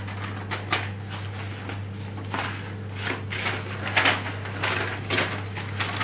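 Handling noises as an electric kettle and its parts are picked up and set down: several light, scattered knocks and clicks over a steady low electrical hum.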